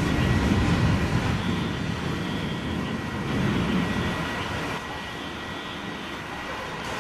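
Thunder rumbling: it breaks in suddenly, swells again about halfway through, then dies down.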